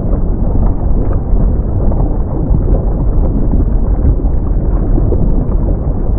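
Volcano eruption sound effect: a loud, steady low rumble.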